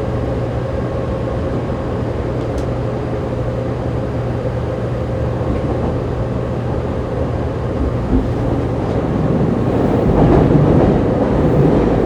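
Running noise inside a Fukuoka City Subway 2000 series car in a tunnel: steady rumble of wheels and motors with a steady hum and whine from the Hitachi GTO-VVVF traction drive, growing somewhat louder in the last few seconds.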